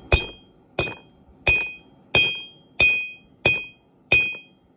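Cross-peen hammer beating a hot railroad spike on an anvil: seven evenly paced strikes, about one and a half a second, each with a bright metallic ring. This is the spike being flattened out to forge a knife blade.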